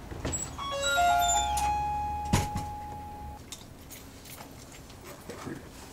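A handheld electronic tester powering up: a quick run of beeps at changing pitches, then one held tone that stops about three and a half seconds in, with a low hum under it. A sharp click comes a little past two seconds.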